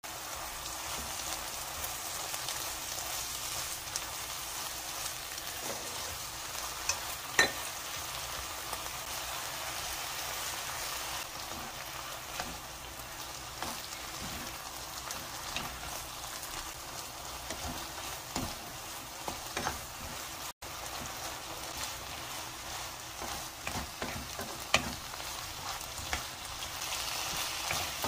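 Sliced pork and vegetables sizzling in a hot oiled wok while a wooden spatula stirs and tosses them, with scattered scrapes and a couple of sharp clicks against the pan.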